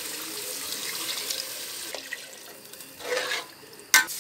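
Water pouring from a steel glass into an aluminium pot of frying masala, splashing steadily for about two seconds. It eases off, comes back briefly about three seconds in, and a sharp clink comes near the end.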